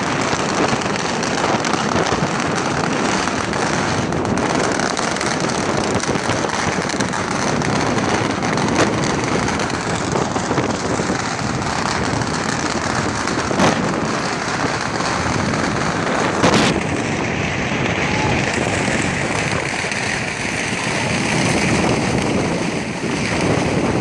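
A long string of firecrackers going off in a dense, continuous crackle with scattered louder cracks.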